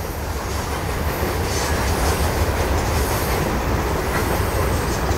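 Freight train's covered hoppers and tank cars rolling past on a curve: a steady rumble of steel wheels on the rails.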